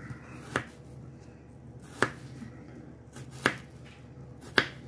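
Kitchen knife slicing through a white onion and striking a plastic cutting board: four sharp chops, each a second or more apart.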